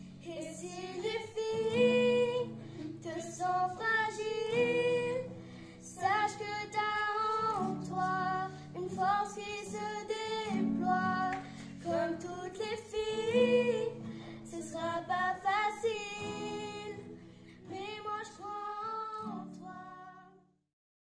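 Girls singing together to an acoustic guitar strummed by one of them; the song cuts off suddenly near the end.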